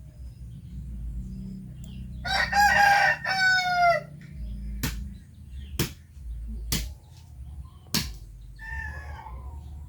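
A rooster crowing once, a loud call in two parts, followed by four sharp clicks or knocks and a fainter call near the end.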